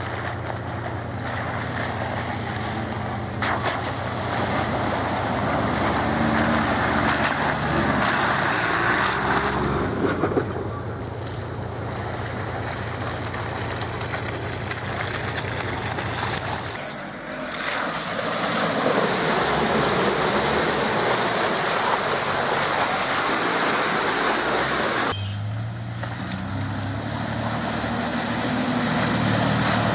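Four-wheel drives, a Toyota LandCruiser 80 series and a Ford Escape, driving slowly along a muddy, puddled track, their engines running steadily under a broad rushing noise. The sound changes abruptly twice, about halfway through and again near the end.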